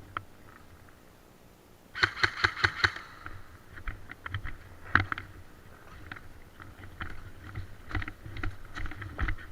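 Airsoft gun firing a quick string of about seven shots in about a second, starting about two seconds in, followed by scattered sharp clicks and knocks.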